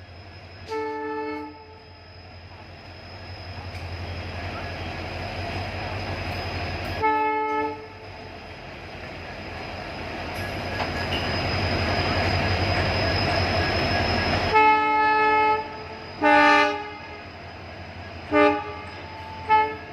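Indian Railways locomotive horn sounding a series of loud blasts. One comes near the start and one in the middle, then they come closer together in the last few seconds. Between and under them, the rumble of a running train builds steadily, then falls away suddenly just before the closely spaced blasts.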